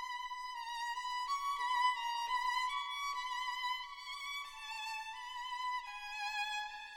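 Background music: a single melody line of held notes with vibrato, sliding between notes, in a violin-like tone.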